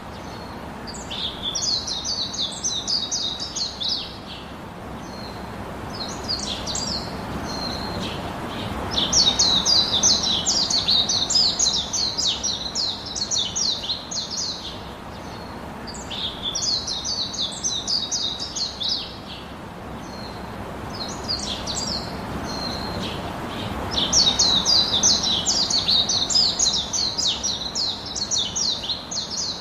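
Small birds chirping and twittering in bouts of fast, high trills, several seconds each, with short pauses between them, over a steady background hiss.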